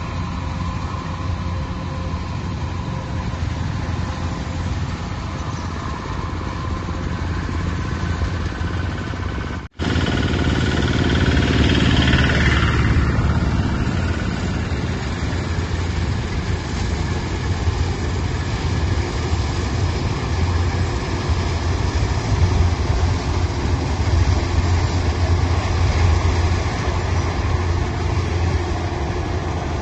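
Engine of harvest machinery running steadily, with a sudden brief cut a little under ten seconds in, after which it carries on somewhat louder.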